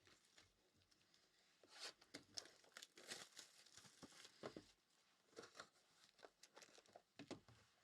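Faint crinkling and tearing of a trading-card pack wrapper being opened, in irregular crackles.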